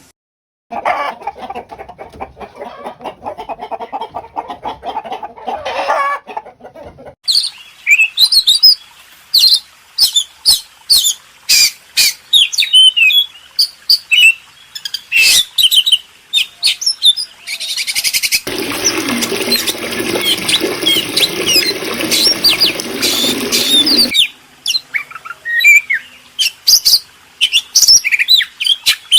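Animal calls in a series of spliced clips: a lower, squeaky repeating call for the first few seconds, then many rapid high chirps, with a dense, noisy stretch of overlapping sound in the middle.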